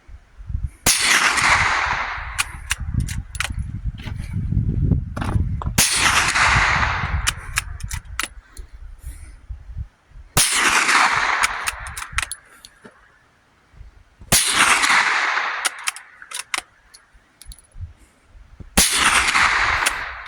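.22 LR rifle firing a magazine of rounds: five loud shots spaced about four to five seconds apart, each trailing off over a second or so, with small sharp clicks between them.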